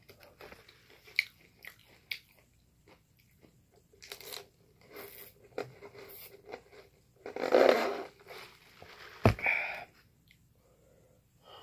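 Crunching bites and chewing of crispy fast food, in irregular bursts, with a single sharp knock about nine seconds in.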